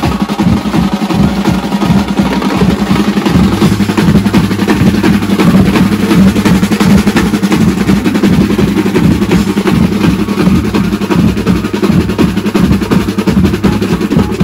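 A procession band's drums playing loud and fast, with dense strokes and continuous rolls over a steady low tone.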